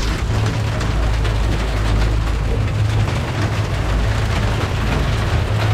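Twin outboard motors running steadily under way with a continuous low drone, mixed with the hiss of rain and water rushing past the hull.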